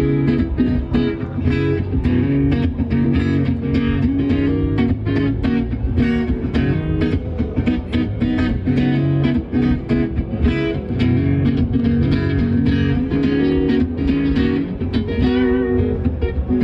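Acoustic guitar strummed in a quick, steady rhythm: an instrumental intro before the vocals come in.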